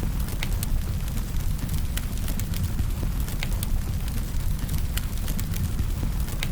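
Wood fire burning with a steady low rumble of flame and irregular sharp crackles and pops from the firewood, several a second.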